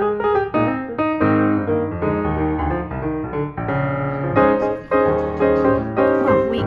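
Background piano music: a melody over chords.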